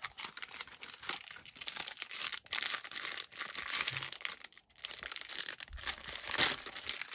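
Crinkling and tearing of a Sonny Angel blind-box figure's foil wrapper as it is pulled open by hand, in quick crackles with a couple of brief pauses.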